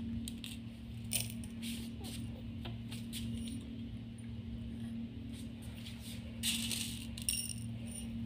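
Scattered light clinks and rattles of small utensils being handled at a miniature clay kitchen set, with a stronger cluster of clinks about six to seven seconds in, over a steady low hum.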